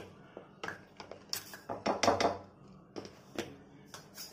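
Plastic measuring cup scraping and knocking against a plastic sieve as flour is worked through it: irregular clicks and rubbing, loudest about two seconds in.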